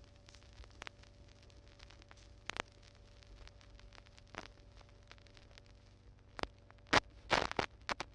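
Vinyl LP surface noise after the music has ended: faint hiss and hum with scattered clicks, and a sharper pop about every two seconds as the stylus circles the run-out groove. A louder cluster of crackles comes near the end.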